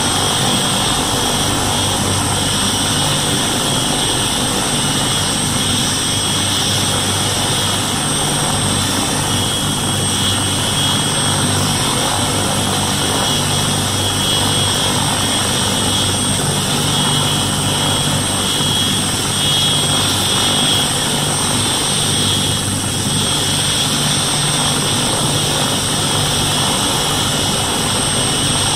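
MBB Bo 105 helicopter running on the ground with its rotors turning: the steady whine of its twin Allison 250-C20B turboshaft engines over the beat of the main and tail rotors.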